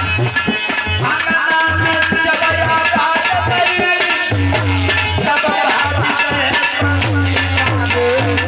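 Live Indian folk music: a harmonium plays a sustained melody over steady hand-drum and rattle percussion.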